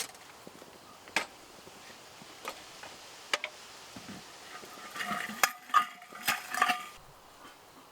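Camp cookware and utensils being handled: a few light knocks and clicks, then a quick run of metallic clinks with brief ringing about five seconds in.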